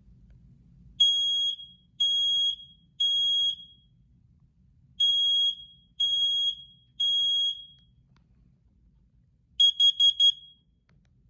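First Alert SC9120B smoke and carbon monoxide alarm sounding its self-test: two rounds of three high-pitched beeps, the smoke-alarm pattern, then four quick beeps near the end, the carbon monoxide pattern.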